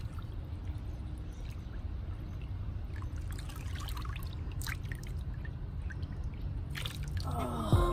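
Water sloshing and trickling in a plastic tub as a shoe is pushed through a spray-paint film on the surface for hydro dipping and lifted out, water running and dripping off it, with a few small splashes. Background music comes in near the end.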